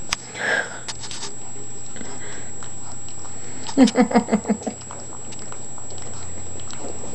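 English Mastiff puppy eating soft food from a plastic plate, with scattered wet smacking and chewing sounds. About four seconds in, a quick run of about seven short voiced pulses stands out as the loudest sound.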